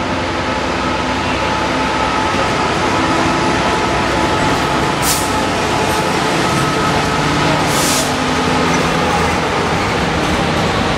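Class 66 diesel-electric locomotive running as it passes close by at the head of a container train; its two-stroke V12 diesel engine gives a steady mix of tones. Two short hisses come about five and eight seconds in.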